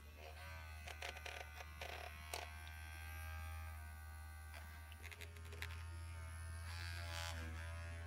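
Ribbit handheld electric vibrating massager buzzing with a steady low hum, held against a cat's head. A few brief rattles come through as the vibration carries into her teeth, mostly about a second in and again near the end.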